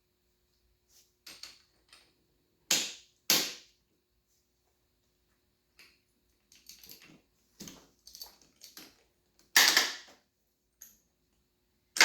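Metal hand tools clanking and knocking against a dirt bike's engine, in a string of separate sharp knocks. Two loud knocks come about three seconds in, lighter taps follow, and there is another loud clank near ten seconds.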